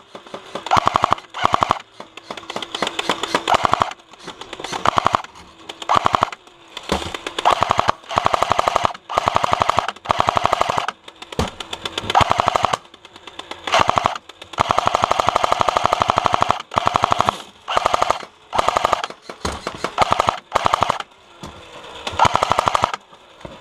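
Airsoft light machine gun firing BBs in rapid automatic bursts, again and again, some short and some held for about two seconds, with the whine of the gearbox under each burst.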